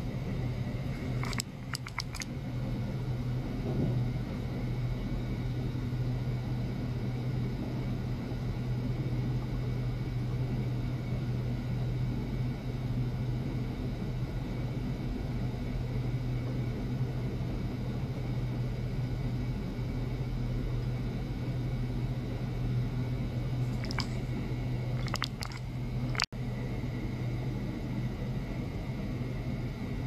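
Steady low mechanical hum from running bench equipment, with a few light clicks about a second and a half in and again near the end.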